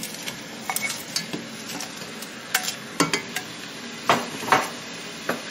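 A spoon knocking and scraping against a cooking pot and a foil tray as pieces of cooked meat are dropped into a simmering pepper stew, about eight irregular clicks and knocks. Underneath is a steady hiss from the hot stew.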